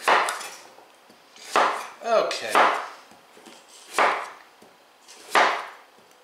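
Chef's knife slicing through delicata squash and knocking on a wooden cutting board, five strokes about a second or so apart.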